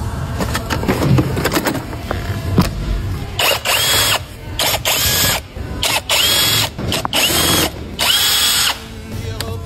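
Cordless power tool run in five short bursts, each whining up to speed, holding for well under a second and winding down. Before them come a few seconds of clinks and knocks of metal tools.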